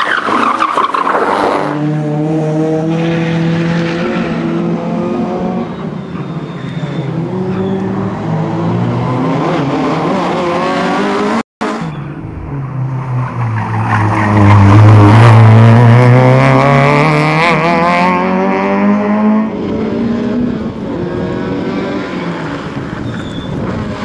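Citroen Saxo rally car's engine revving hard, its pitch falling and climbing again as it brakes for turns and accelerates away. There is a brief break just before halfway, and the engine is loudest a little past the middle as the car accelerates close by.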